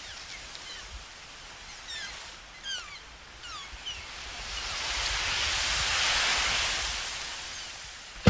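Imitated nature sounds made from plastic waste taken out of the ocean: a steady hiss with a run of short falling, bird-like chirps about two to four seconds in, then a rush of noise that swells and fades like a wave.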